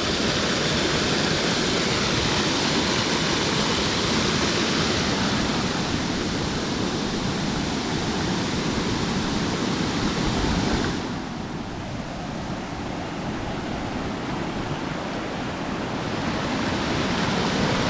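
Steady rushing of a waterfall. About eleven seconds in the high hiss falls away and the rush becomes duller and lower, then slowly builds again near the end.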